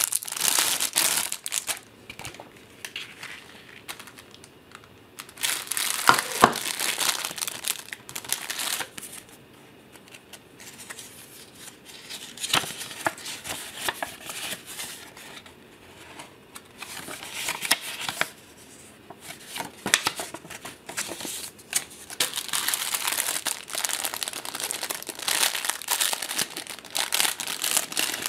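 Clear plastic packaging crinkling in bouts as it is handled and unwrapped, with quieter stretches between.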